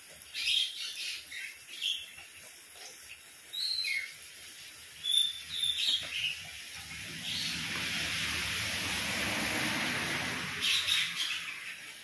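Birds chirping in short scattered calls over steady light rain, one call falling in pitch about four seconds in. In the middle a broad rushing noise swells for about four seconds and then fades.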